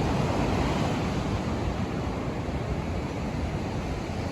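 Rough sea surf washing steadily on the shore, with wind buffeting the microphone.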